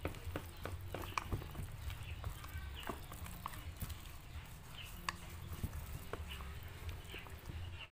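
A wooden spatula stirring thick yam batter in a stainless steel bowl: irregular taps, clicks and scrapes against the metal, over a low steady hum.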